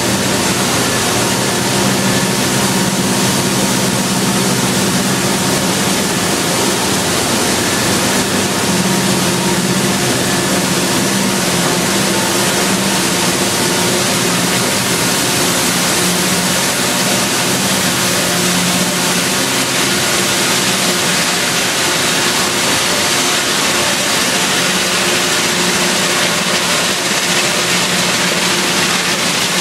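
Plastic sheet extrusion line running: loud, steady factory machinery noise with a constant hum underneath.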